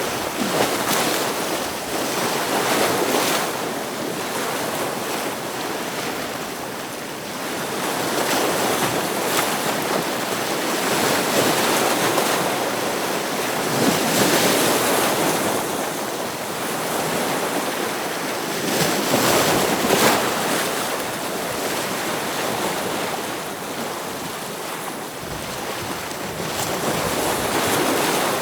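Ocean waves breaking against rocks, a continuous surf noise that swells and recedes every few seconds, with some wind.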